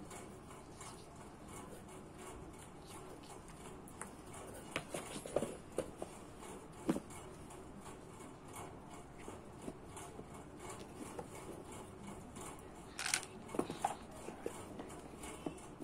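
Toys and cardboard boxes being handled: faint rustling with scattered light knocks and clatters, a cluster about five seconds in and another a little before the end as a box lid is moved.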